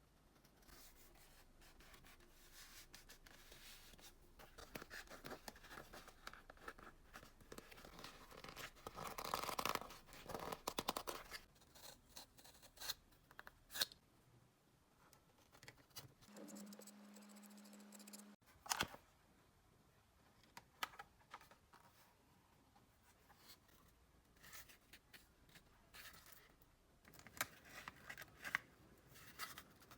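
Faint scraping and scratching with scattered sharp clicks, like small parts being handled. About halfway through, a steady low hum sounds for roughly two seconds.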